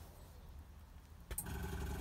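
A click, then a small electric motor running steadily for about a second before cutting off.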